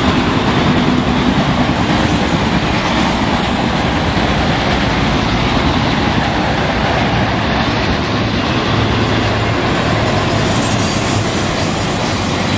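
BNSF intermodal train's flatcars, loaded with highway trailers, rolling steadily past: a continuous rumble and rattle of steel wheels on rail. A faint high squeal is heard for a couple of seconds about two seconds in.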